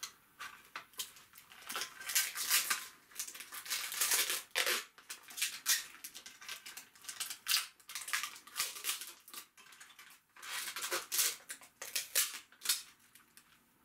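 Thin plastic protective film crinkling and crackling in irregular bursts with sharp clicks as it is bent and peeled off the parts of a toy figure, with a short lull about two thirds of the way through.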